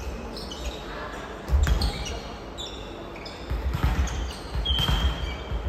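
Volleyballs thudding as they are hit and bounce on a wooden gym floor, a few heavy thuds among lighter ones, with athletic shoes squeaking in short high chirps throughout.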